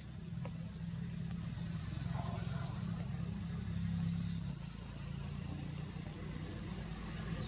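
A steady low engine rumble, shifting in tone about four and a half seconds in, over an even hiss.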